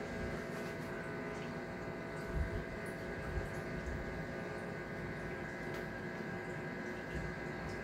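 Steady hum of reef aquarium pumps and equipment with running water, holding several steady tones, and a couple of low bumps about two and a half and three and a half seconds in.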